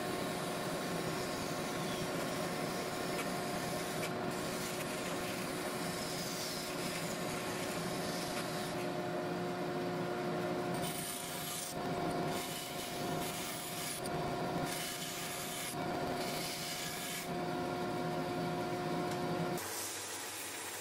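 Band saw cutting a blue-dyed curly maple knife-handle block: the steady tone of the running saw with the rasp of the blade going through the wood. The cutting breaks up a few times past the middle and stops shortly before the end.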